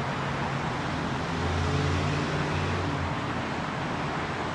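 Steady roar of freeway traffic, with one vehicle's engine hum coming up louder through the middle.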